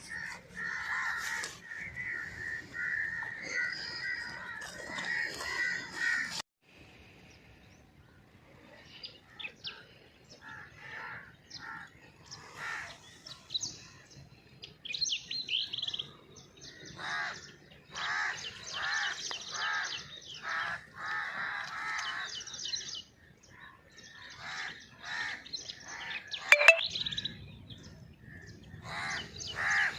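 Crows cawing over and over, with smaller birds chirping. Near the end there is a single sharp bang, the loudest sound here.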